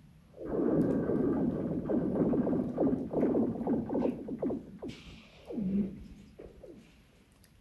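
Thawing lake ice singing: a rapid cluster of falling, laser-like chirps for about four seconds, then one more falling zip near six seconds. These are the sounds of the ice sheet shifting and cracking as it thaws.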